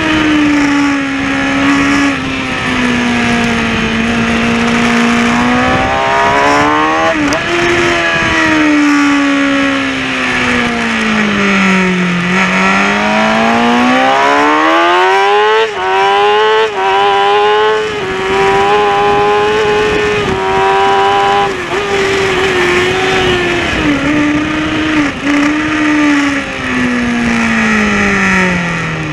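Kawasaki ZX-6R inline-four engine running hard at racing revs. Its pitch sinks for the first dozen seconds, climbs steeply, holds high with a few brief cuts in loudness, then falls again near the end. Wind rush over the onboard microphone runs underneath.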